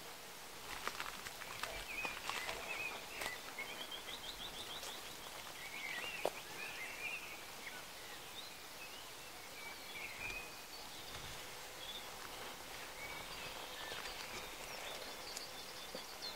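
Small birds chirping and calling, with one short, fast trill about four seconds in. A few light crunches of footsteps on stony ground come in the first few seconds.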